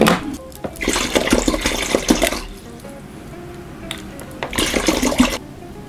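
Water poured into a stainless steel bowl of hot water, in two goes with a short pause between, to cool the bath from 60 degrees for proofing dough.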